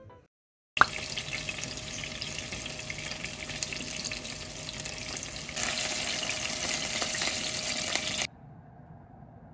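Chicken karaage pieces shallow-frying in oil in a pan: a steady sizzle that starts suddenly, grows louder a little past halfway, and cuts off shortly before the end.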